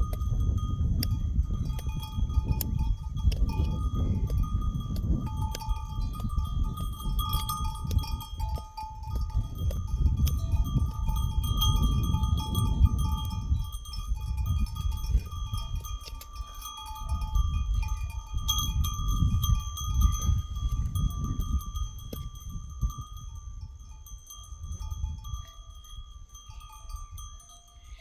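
Bells on a flock of grazing livestock ringing and clinking steadily, with gusts of wind buffeting the microphone.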